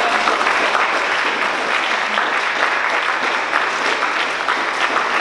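Audience applauding steadily in a large hall, a dense mass of many people's hand claps.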